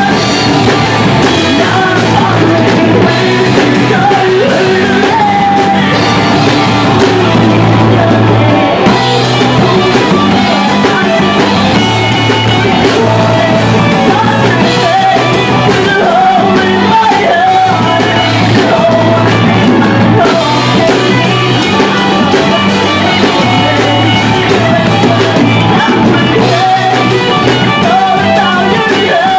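Live rock band playing loudly: a woman singing over electric guitars and a drum kit.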